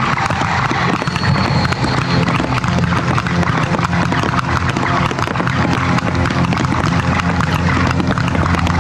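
Fireworks display: aerial shells bursting overhead with a dense, continuous crackle of many small pops.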